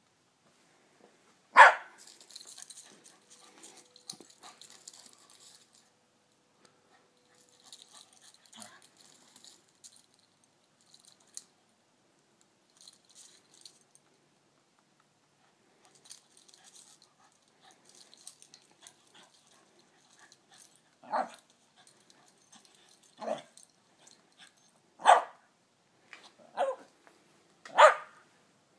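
Dog barking in single short barks: one loud bark near the start, then five more one to two seconds apart toward the end. Faint scratchy scuffling noises come in between.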